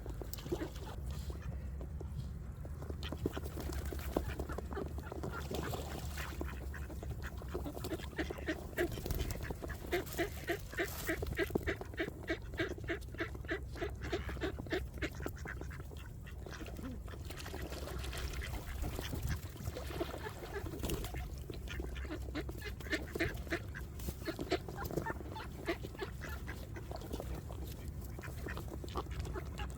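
A crowd of ducks quacking in quick, overlapping runs of calls, busiest about a third of the way in and again past the middle.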